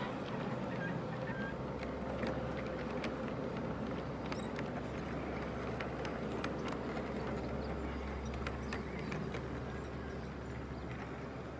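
G scale model freight cars rolling by on outdoor track: a steady rumble with scattered clicks of the wheels over the rail joints.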